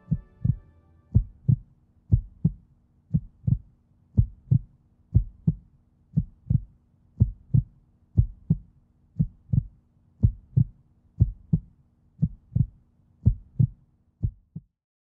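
Heartbeat sound effect: a steady lub-dub of paired low thumps about once a second, over a faint low hum, stopping shortly before the end.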